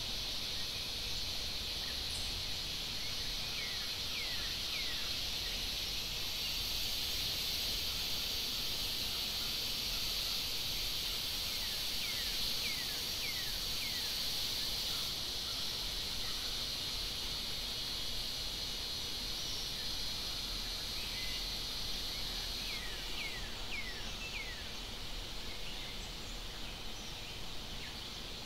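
Forest ambience: a steady high-pitched insect chorus, with three bursts of four or five short falling chirps.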